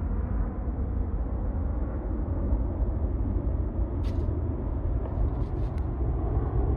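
Jet noise from a C-17 Globemaster III's four Pratt & Whitney F117 turbofans after liftoff: a steady, deep rumble, with a few faint clicks about four and five seconds in.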